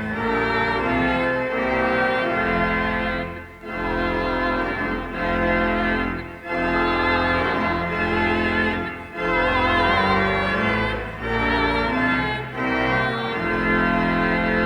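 Church organ playing a postlude in sustained chords. The chords come in phrases a few seconds long, with brief breaks between them.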